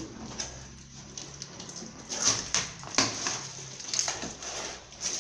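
Cardboard box being handled and opened by hand, rustling and scraping, with sharper scrapes about two, three and four seconds in.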